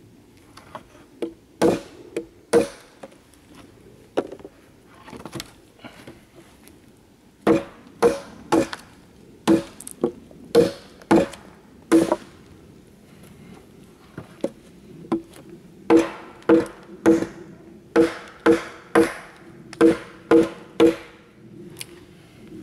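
Gränsfors Bruk mini hatchet chopping a thin dead branch laid across logs: sharp chops, each with a brief low ring, in runs of about two a second, with pauses between the runs.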